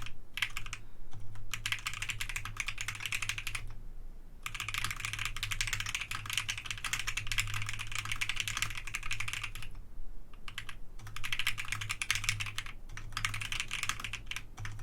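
Typing on a QwertyKeys QK65 custom mechanical keyboard with Akko Jelly Black linear switches and an FR4 plate: rapid keystrokes in long runs, broken by short pauses about four seconds in and about ten seconds in.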